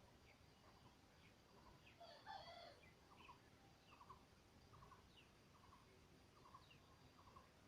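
Faint bird calls: short chirps repeating about every second, with one louder, fuller call a little over two seconds in.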